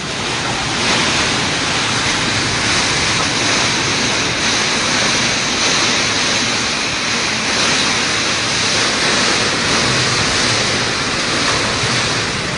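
Typhoon wind and heavy rain, a loud steady rush with gusts swelling and easing.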